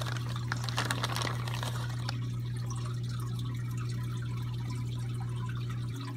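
Steady low hum with water trickling, typical of an aquarium's filter or pump running. Plastic packing crinkles in the first second or so.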